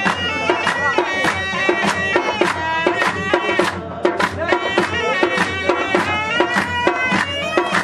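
Live Balti folk music: a loud shawm-like reed pipe plays a sustained, nasal melody over a steady, fast percussive beat, with the audience clapping along.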